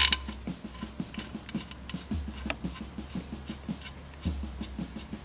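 Light metal clinks of connecting-rod cap hardware (locking tabs and nuts) being fitted by hand onto the rod bolts of a Wisconsin engine, with a sharp clink at the start and another about two and a half seconds in. Under it runs a soft low pulsing about five times a second.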